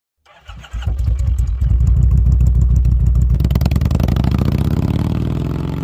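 Kawasaki Voyager motorcycle engine running with a deep, pulsing beat. From about halfway through it rises in pitch as it revs up, then starts to fade near the end.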